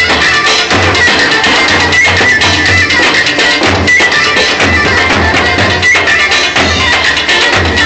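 Loud traditional folk music with a steady drum beat and a held high melody line running over it.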